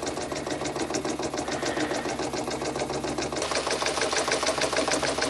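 Cyldon 13-2 toy steam engine with a semi-rotative valve, running steadily on live steam raised by a gas burner. It makes a rapid, even mechanical beat.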